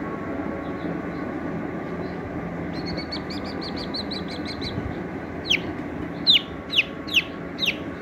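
Young chick peeping: a quick run of soft, high chirps about three seconds in, then six loud peeps, each sliding sharply down in pitch, over the last few seconds, above a steady background hiss.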